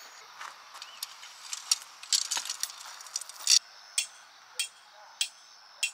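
A hammer driving a metal tent peg into gravel: a run of sharp metallic clinks, coming about every half second in the second half.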